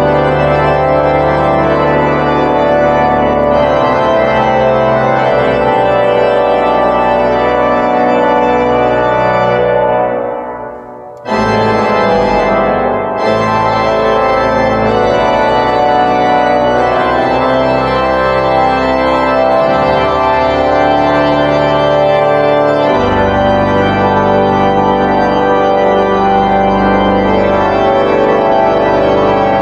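Salt Lake Tabernacle pipe organ playing a loud, full hymn arrangement in sustained chords. About ten seconds in the chord breaks off and dies away in the hall's reverberation for about a second before the playing comes back in; deep pedal bass notes enter in the last third.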